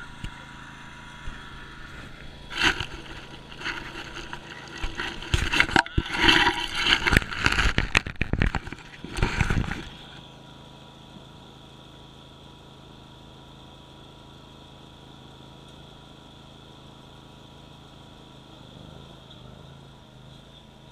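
Zero-turn mower's 27 hp Kohler engine running steadily. From about two and a half seconds in until about ten seconds in, loud, irregular rough scraping and rushing noise rides over it, then the engine carries on alone.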